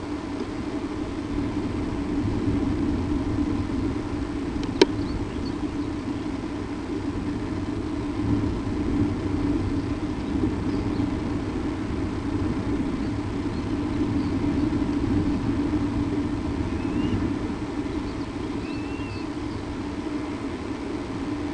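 Steady low rumbling noise, with one sharp click about five seconds in.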